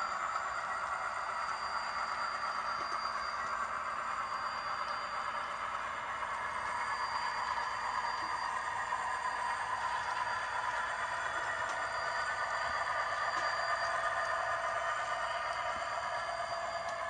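ScaleTrains model diesel locomotive pulling a freight car along model railroad track: a steady running noise of wheels on rail and the locomotive's drive, growing a little louder past the middle.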